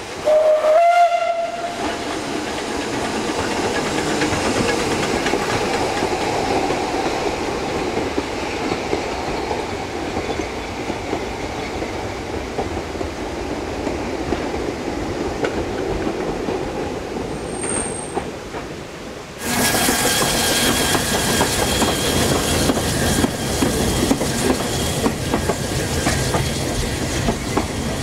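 Narrow-gauge steam train: a short whistle blast right at the start that rises and then holds for about a second and a half, then the train running along the rails. About nineteen seconds in the sound cuts abruptly to louder, closer train running noise with faint steady high tones and rapid clicking.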